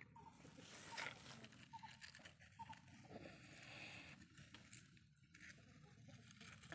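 Near silence: faint background hiss, with one soft click about a second in.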